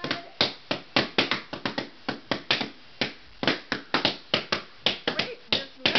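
Balloons being popped with pins one after another: sharp bangs in quick, irregular succession, several a second.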